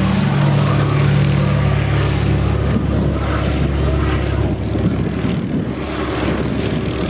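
The twin Pratt & Whitney R-1830 radial engines of a Douglas C-47 run on the ground with a steady propeller drone. About three seconds in, the drone gives way to a rougher, noisier mix.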